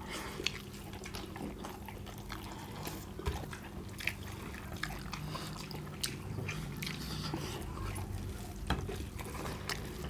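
Wet eating sounds of chicken curry and rice being mixed and chewed: small, scattered squishes, smacks and clicks over a steady low hum.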